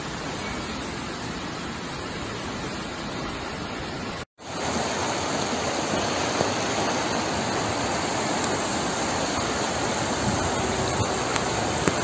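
Rushing floodwater: a steady rush of water running over a flooded paved path, then, after a brief break about four seconds in, the louder, steady rush of a swollen, fast-flowing river in flood.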